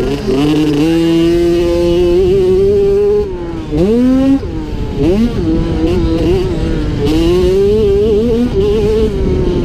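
A 50cc two-stroke youth motocross bike's engine, heard close up from on the bike, running hard at high revs with the pitch wavering as the throttle is worked. A little over three seconds in the throttle closes briefly and the engine then revs sharply back up, and again about a second later.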